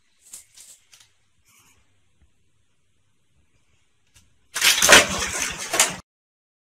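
A cat clambering about the shelves of an open refrigerator: a few soft knocks and rustles, then about a second and a half later a loud crackling clatter of shelves and contents that cuts off suddenly.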